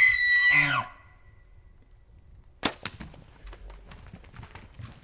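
Bull elk bugling: a held high whistle that drops away into low grunts in the first second. About three seconds in comes a single sharp snap, followed by scattered light crackles and knocks.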